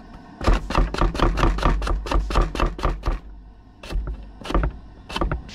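A vegetable is rubbed hard against a stainless steel box grater standing on a wooden cutting board. The grating strokes come fast and even, about five a second, for about two and a half seconds, then slow to a few separate strokes, and the grater thumps against the board.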